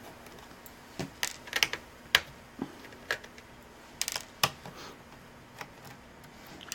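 Light, irregular clicks and taps, about a dozen of them, from a screwdriver and fingers working the screws and cover plate on the underside of a Gateway laptop.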